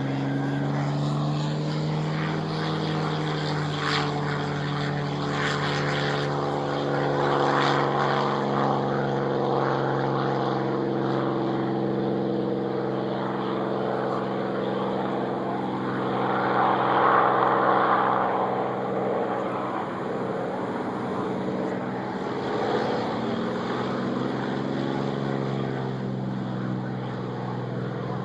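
Piston engines of World War II warbird aircraft running with propellers turning, a steady drone whose pitch drifts slightly. It grows louder about two thirds of the way through, then eases back.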